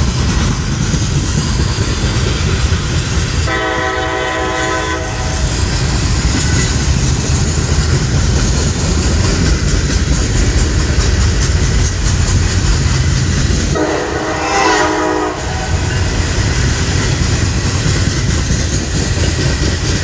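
Freight cars of a slow manifest train rolling past with a steady heavy rumble. Two locomotive horn blasts of about a second and a half each sound over it, around four seconds and fourteen seconds in.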